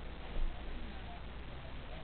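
Steady low hiss of room tone with one dull, low thump about half a second in.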